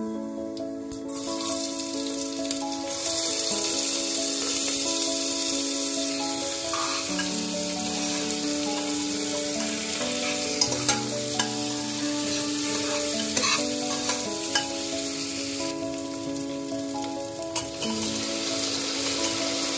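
Chopped onions and cumin seeds sizzling in hot oil in a pressure cooker. The sizzle grows louder a second or two in. A metal spoon stirs them, clicking against the pot several times around the middle. Background music with held notes plays under it.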